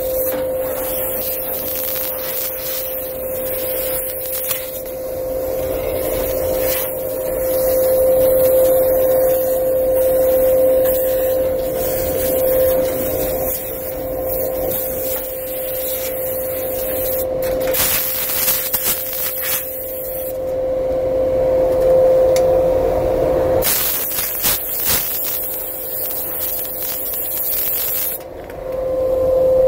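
Vacuum cleaner running steadily, a constant motor tone under a rushing hiss of air. The hiss swells louder briefly about eighteen seconds in and again for several seconds near the end.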